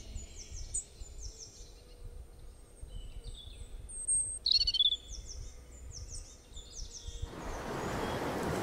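Birds calling: quick, repeated, high chirps that slide downward, with one louder call about four and a half seconds in. Near the end a steady rushing noise swells up.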